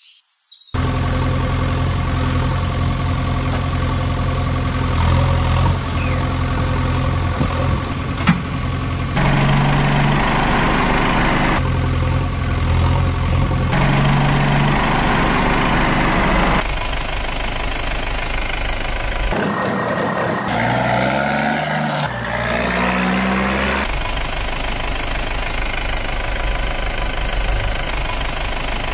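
Engine sound effect of a heavy vehicle idling, starting under a second in and spliced into segments that change abruptly several times, with the pitch sweeping up and down briefly about two-thirds of the way through.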